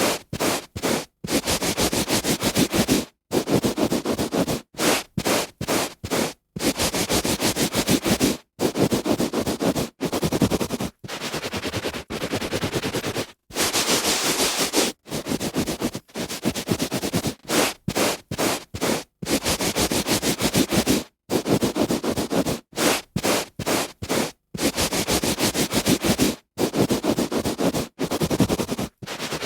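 A hand rubbing on a carpet: a string of scratchy rubbing strokes of varying length, each broken off by a short gap of silence.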